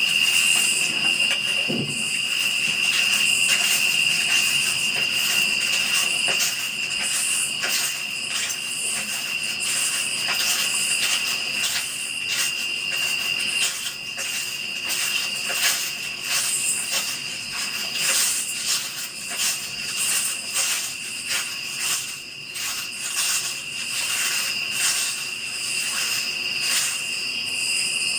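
Insects chirping outdoors in a steady chorus: a shrill high drone with fast, shimmering pulsing that runs on without a break.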